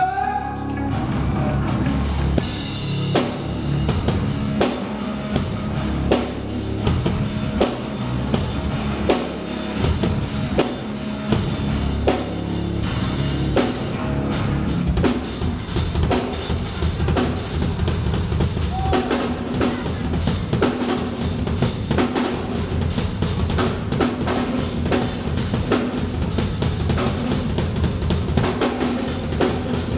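Live drum kit playing: kick drum and snare hits in a dense, continuous run.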